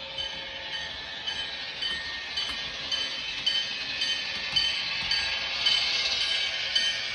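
HO-scale MTH GP38-2 model locomotive's Proto-Sound 3.0 onboard sound playing a diesel engine sound through its small speaker as it runs, with the locomotive bell ringing about twice a second.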